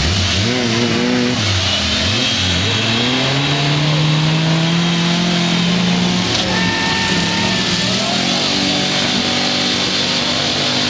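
Engines of a stuck pickup truck and a small 4x4 towing it on a strap, both revving hard. The pitch rises and falls again and again as the drivers work the throttles.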